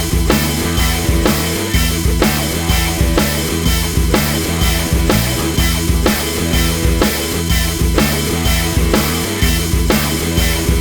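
Rock music with drums and a steady beat.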